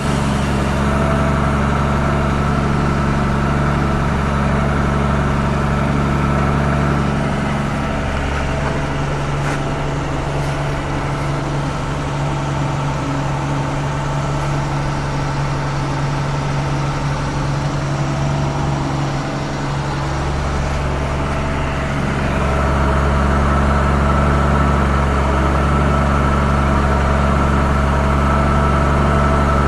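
Mercedes-Benz Unimog U1500's six-cylinder diesel engine running steadily. Its low note eases off about eight seconds in and builds back up about twenty-two seconds in.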